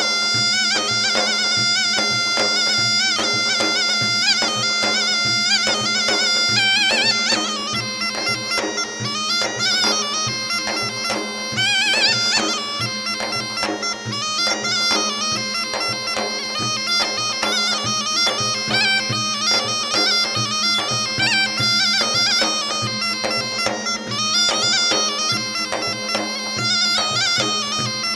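Bagpipe music: a quick, ornamented melody played over a steady, unbroken drone.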